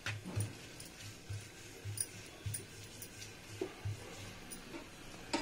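Wooden rolling pin rolling out a stuffed paratha on a round board: a run of soft, dull thumps, about two or three a second, with faint clicks.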